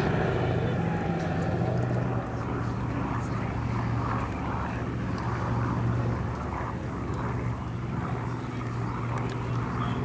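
Boeing B-17 Flying Fortress's four radial piston engines and propellers droning steadily in a flyby, slowly fading as the bomber draws away.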